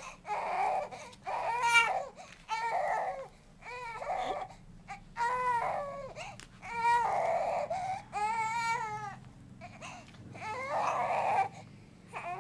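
Two-month-old baby crying in a string of about eight wails, each roughly a second long, with short breaths between them.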